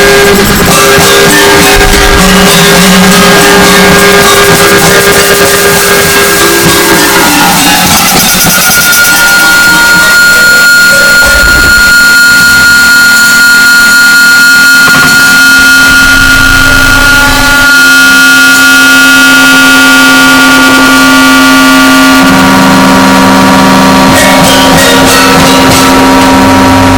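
Harsh noise music: a constant, very loud wall of distorted noise with sustained feedback-like tones held for several seconds at a time, the held tones shifting about a quarter of the way in and again near the end.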